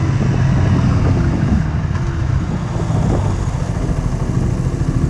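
KTM Duke 125's single-cylinder four-stroke engine running under the rider, easing off with a falling pitch about a second and a half in, then settling into a low, even pulsing chug near the end as the bike slows.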